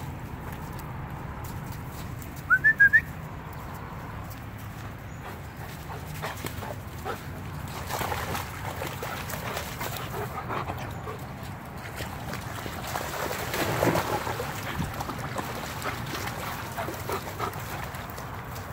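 Dogs playing and wading in a shallow stream, with splashing in the water. About two and a half seconds in comes a quick run of four high, rising whimpering yips.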